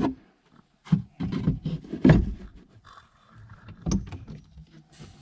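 Hands working the rear storage compartment lids and carpet of a 1971 Corvette: a few knocks and thumps, the loudest about two seconds in, with rubbing and scraping between them.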